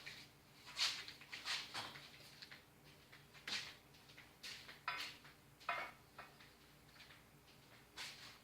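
Scattered short clicks, knocks and rattles of hand tools and small metal parts being handled and sorted, at irregular intervals.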